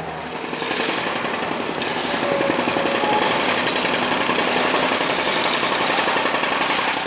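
Grinding rasp from a 2006 Subaru Forester's rear brake, a rusted, scored rotor scraping as the wheel turns, pulsing rapidly. It builds about a second in, holds steady and stops sharply near the end. It is the sign of worn-out rear brakes.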